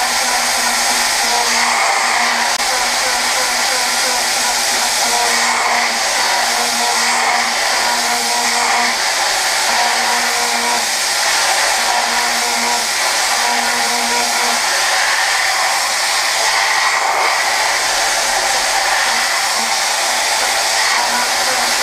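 Okuma GENOS M560-V vertical machining centre, 15,000 rpm spindle, Z-level roughing hardened S7 tool steel at 56 Rc with an end mill. A loud, steady hissing rush comes from the cut and the nozzles. A low hum breaks in and out every second or two for about the first two-thirds, then fades.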